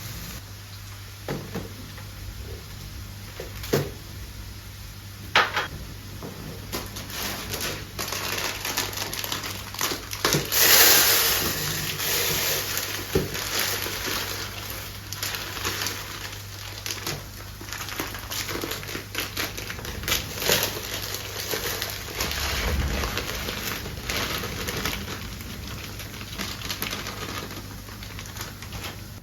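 Close handling sounds: scattered clicks and taps with crinkling, a louder rustling stretch about ten seconds in, over a low steady hum.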